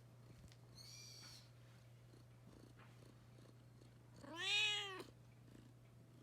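Kitten meowing twice: a faint, high mew about a second in, then a louder meow that rises and falls in pitch, about four and a half seconds in.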